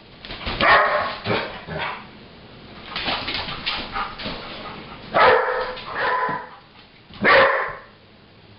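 A young Old English Sheepdog cross barking in play at a watermelon: a string of short barks, loudest about a second in and again around five and seven seconds in, with softer barks between.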